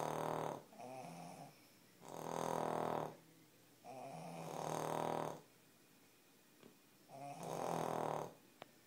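Cavalier King Charles spaniel snoring: four rasping, pitched snores a couple of seconds apart, some drawn out in two parts, with quiet pauses between.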